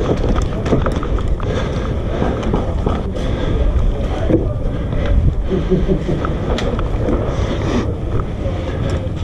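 Wind buffeting and movement noise on an action-camera microphone, a steady low rumble with scattered faint clicks.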